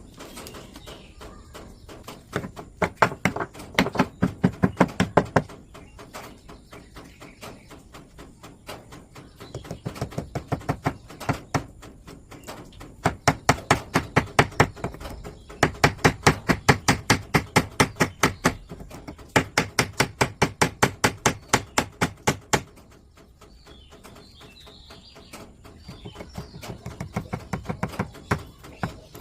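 Rapid, even strikes on wood, about five a second, in runs of a few seconds with short pauses between.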